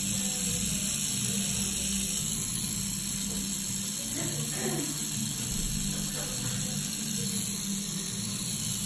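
Coil tattoo machine buzzing steadily as the needle works colour into skin.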